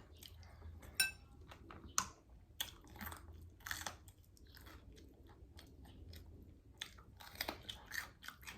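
A person chewing food, with irregular sharp clicks and crunches.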